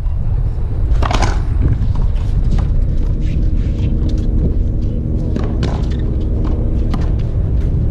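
A racquetball rally ending: one hard, sharp strike of the ball about a second in, then scattered lighter knocks and taps, over a steady low rumble.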